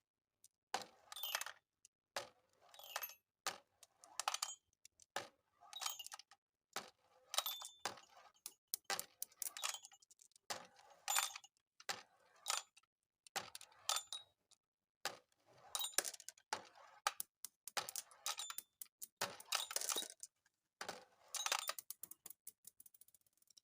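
Marbles rolling and clattering down a marble-run track: repeated bursts of sharp clicks and clinks about once a second, with short ringing tones.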